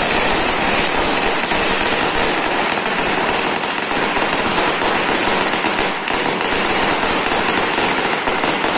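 A long string of firecrackers going off, a dense unbroken crackle of rapid small bangs with no gaps.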